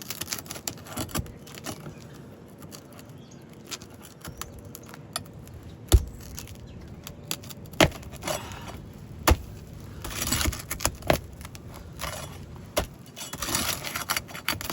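Flat pry bar working under asphalt shingles to pry out roofing nails: bouts of scraping with a few sharp metal knocks, as the nails pull through the shingles.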